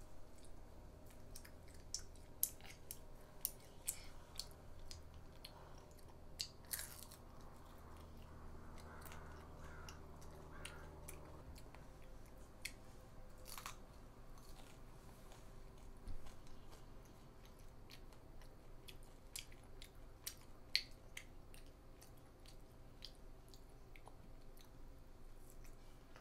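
A young girl chewing and biting crispy bánh xèo (Vietnamese rice-flour crepe) close to the microphone: scattered small crunches and mouth clicks, a few of them sharper than the rest.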